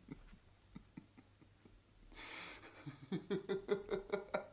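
A man laughing: faint breathy chuckles, a sharp breath about two seconds in, then louder rhythmic laughter at about five ha's a second.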